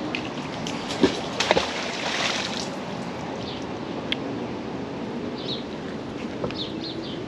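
River water lapping and trickling against kayak hulls, with a few sharp knocks about a second in and faint bird chirps near the end.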